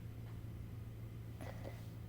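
Quiet room tone with a low steady hum, and a couple of faint soft handling sounds about one and a half seconds in.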